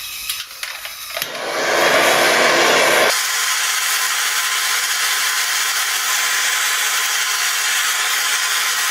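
Blowtorch flame hissing steadily while it heats a copper pipe fitting for soldering, so the solder gets drawn into the joint. About three seconds in, the hiss shifts higher and then holds steady.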